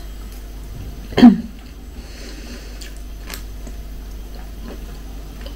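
A person chewing a mouthful of rice quietly, with one short, loud throat sound about a second in that drops in pitch, and a few faint clicks.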